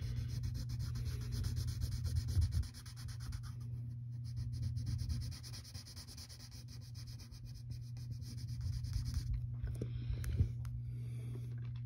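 A graphite pencil rubbed on its side over paper, shading an area solid black: a rough, dry scratching that is strongest for the first few seconds and dies down after about five seconds, over a steady low hum.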